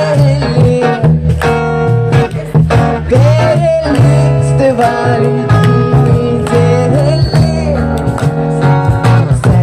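A song played on acoustic guitar with a voice carrying a gliding melody over a steady, repeating bass pattern.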